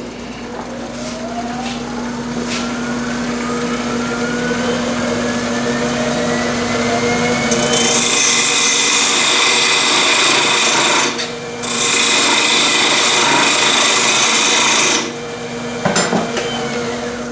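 Wood lathe running with a steady hum and a whine that rises in pitch over the first several seconds as it speeds up. A parting tool then cuts into the spinning wood blank with a loud hissing scrape, in two cuts of a few seconds each with a short break between, stopping shortly before the end.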